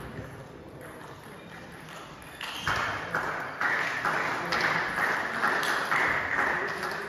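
Table tennis ball bouncing repeatedly, sharp ringing knocks at about two to three a second that begin a little under halfway in.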